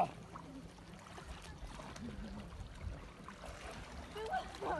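Faint sloshing of calm sea water around a swimmer and a swimming dog, with a few quiet distant voices, one near the end.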